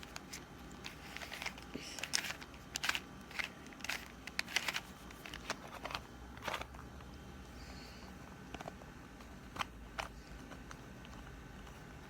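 Rubik's Cube being twisted by hand: a run of quick plastic clicks and scrapes, frequent in the first half and thinning out to a few single clicks later on.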